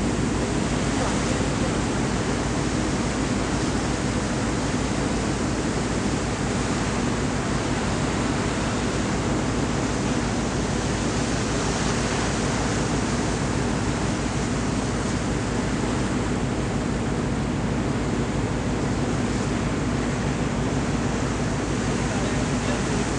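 Steady rush of wind and sea on the open deck of a moving car ferry, with a low, even hum underneath.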